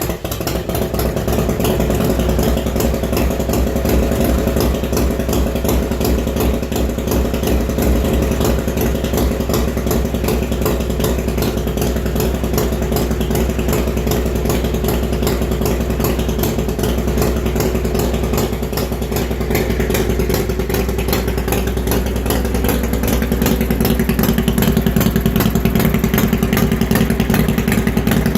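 A 1995 Harley-Davidson FLTR's freshly rebuilt 80-cubic-inch Evolution V-twin running on its first start, choke pulled out, through true dual exhaust. It idles steadily on the choke and runs a little louder over the last few seconds.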